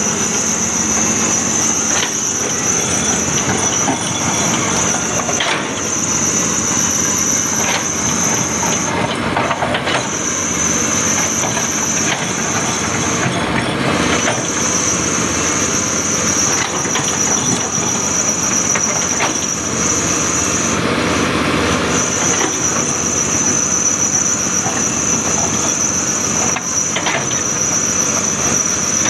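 Cat 320D long-reach excavator working: diesel engine and hydraulics running steadily under load while it digs. A steady high-pitched squeal rides over it and breaks off briefly three times.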